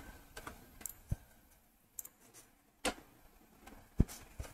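Faint computer mouse clicks, several short sharp clicks at irregular spacing, the loudest about four seconds in.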